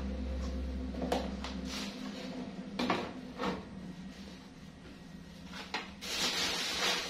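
A plastic crate knocking and scraping on a concrete floor as it is gripped and shifted: a handful of sharp knocks spread over several seconds. A rough rustling noise starts about six seconds in.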